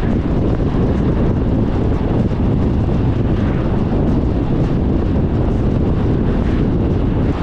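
Steady wind and road noise from a car driving at highway speed, a low rumble of tyres on asphalt with wind buffeting the microphone.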